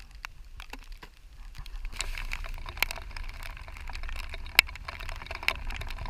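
Raindrops pattering and ticking on a fishing boat and its gear, as scattered sharp ticks that grow denser about two seconds in, over a steady low rumble.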